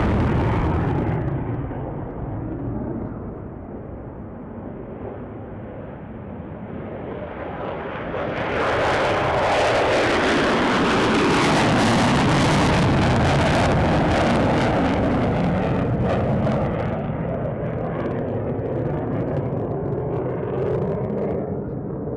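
F-16 fighter jets taking off on full afterburner. One jet's noise dies away over the first couple of seconds. About eight seconds in, the next jet's afterburner comes in sharply and loudly, stays at its loudest for several seconds as it climbs past, then slowly fades.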